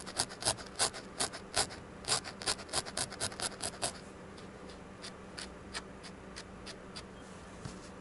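A felting needle stabbing loose wool into a foam pad: quick crisp pokes, about four a second, for the first four seconds, then fainter, scattered pokes.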